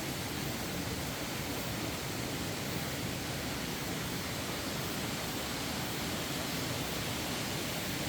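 Mountain stream rushing over rocks, a steady, even wash of water noise.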